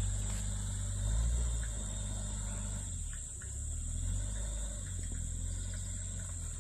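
Daihatsu Terios small 4WD's engine running at low speed as it crawls away over a rutted mud track, a steady low rumble. A steady high insect drone runs underneath.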